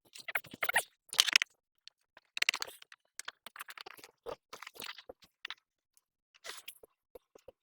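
Plastic being handled by hand: irregular crinkling and scraping with scattered sharp clicks, the loudest bursts in the first second and a half and again around two and a half seconds in.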